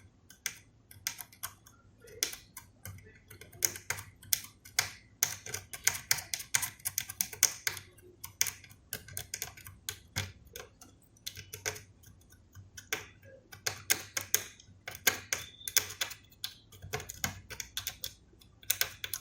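Irregular light clicks and taps, several a second in busy stretches, from small hand tools working on the connector and circuit board during a soldering repair.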